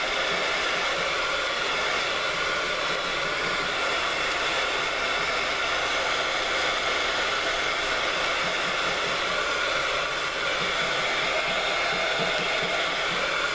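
Handheld craft heat gun blowing steadily, a constant motor whir and rush of hot air, as it dries wet acrylic paint on a paper art page.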